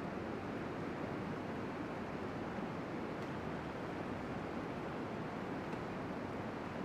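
Steady rush of whitewater rapids on a river, an even noise with no breaks.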